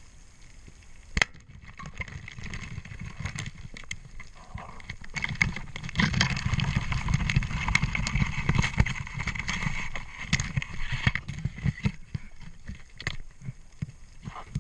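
Underwater noise: dense crackling and sharp clicks, one strong click about a second in, and a louder rush of water and bubbling from about five to eleven seconds in.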